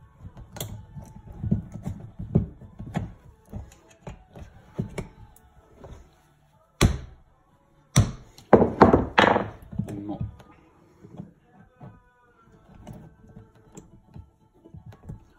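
Brake pads and their wire retaining clips being fitted into a car brake caliper by hand and with a tool: scattered metal clinks and knocks, with a cluster of louder knocks around the middle.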